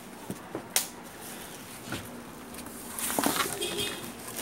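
Plastic wrapping rustling and crinkling as it is pulled off a ride-on toy car, with a sharp click a little under a second in and louder rustling around three seconds in.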